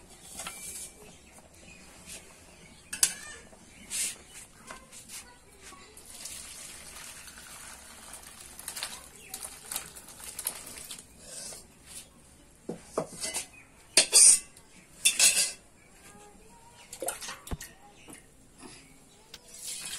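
Metal cookware clattering: a wok and steel bowls and pots knocking and scraping against each other in irregular clanks. The loudest clanks come in a cluster about two-thirds of the way through.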